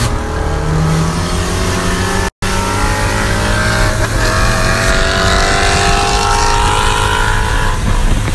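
A Ford Focus ST and a Ford Mustang GT 5.0 accelerating hard side by side at full throttle, the engine note climbing steadily. The sound cuts out completely for an instant a little over two seconds in.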